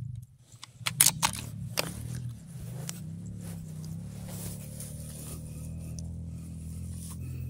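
A quick cluster of sharp handling clicks and rattles about a second in, then background music with a steady low drone.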